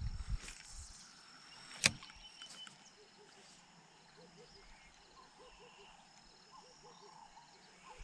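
Quiet riverside ambience with a faint steady high tone, soft short sounds repeating a few times a second from about three seconds in, and a single sharp click a little under two seconds in.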